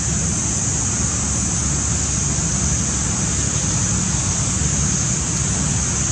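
Steady wind rumble on the microphone under a constant high-pitched hiss, with no distinct events.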